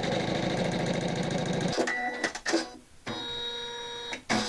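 Computerised embroidery machine (Janome Memory Craft 500E) stitching through felt with a rapid, even needle rhythm. The rhythm breaks off about two seconds in. The machine then runs again more quietly with a steady hum.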